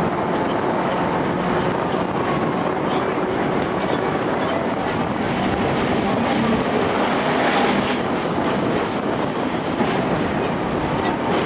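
Hong Kong double-decker electric tram running along its street track, heard from on board: a steady rumble with wind noise and occasional clicks from the wheels on the rails.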